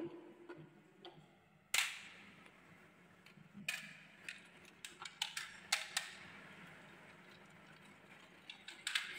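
A glass marble rolling down a plastic slope with a faint steady rumble, dropping into a plastic box of marbles with a sharp clack about two seconds in. Scattered lighter clicks and knocks follow as the box is handled.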